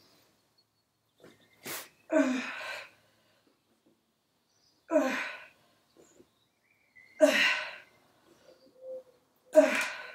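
A woman's short, forceful exhalations, one with each knee push-up: four of them, about two and a half seconds apart. There is a sharp click a little under two seconds in.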